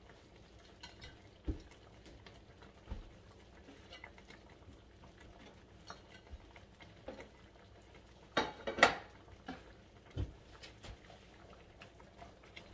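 A cooking utensil clinking and scraping against a pan now and then while the dish is stirred, with a louder clatter of a few quick knocks about two-thirds of the way through.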